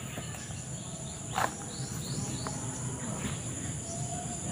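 Insects trilling in a steady high-pitched drone, with a faint knock about a second and a half in and another, fainter, a second later.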